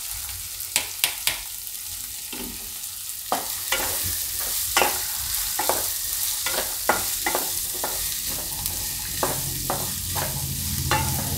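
Chopped onions sizzling in hot oil in a nonstick kadai, freshly added to a spice tempering, while a spatula stirs them, scraping and tapping against the pan many times over the steady sizzle; the strokes come thick and fast from about three seconds in.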